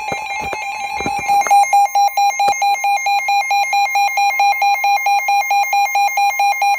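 Emergency alert attention signal: a loud electronic two-tone alarm, steady at first, then pulsing rapidly at about four to five beeps a second from about a second and a half in.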